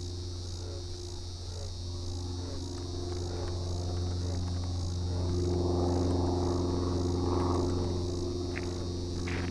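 Steady high insect chorus trilling over a low, constant hum, with a soft rushing sound that swells and fades between about three and eight seconds in.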